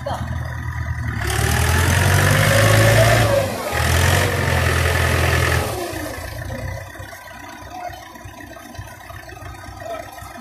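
Mahindra tractor's diesel engine revved hard, from about a second in, with a short dip near three and a half seconds, then dropping back to a low idle about six seconds in. The tractor is bogged in the mud of a flooded paddy field.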